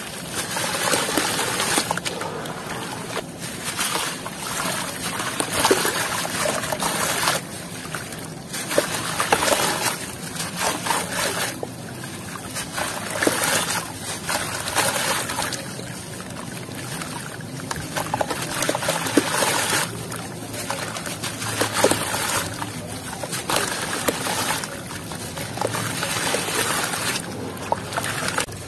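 Hands squeezing and crumbling a gritty clump in a tub of water: irregular wet squelches, splashes and trickling water as the lump breaks up and dissolves into muddy slurry.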